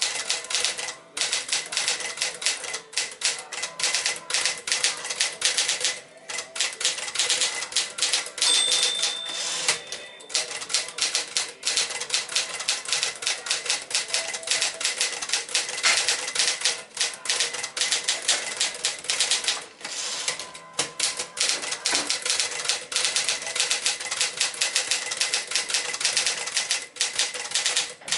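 1963 Smith-Corona Sterling 5AX manual portable typewriter being typed on quickly, its keys and typebars clacking in rapid runs with a few short pauses. A brief ringing tone sounds about eight seconds in.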